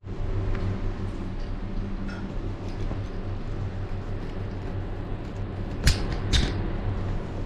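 A steady low hum, with two sharp metallic clicks about half a second apart near the end as a Knipex pliers wrench is set onto a chrome tap fitting.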